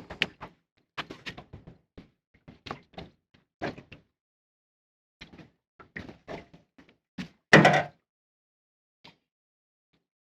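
Irregular knocks and thuds against a small fishing boat, with one louder thud about seven and a half seconds in.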